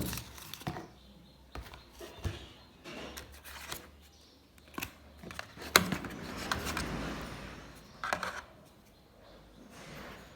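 A Vivo Y30 phone and its box and packaging being handled while unboxing: scattered clicks and taps with rustling, a sharp click at the start and another about six seconds in, followed by a couple of seconds of rustling.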